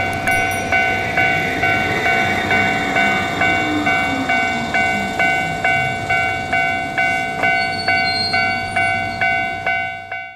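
Japanese level-crossing warning bell ringing 'kan kan' steadily, about two strikes a second, over the running noise of a passing train.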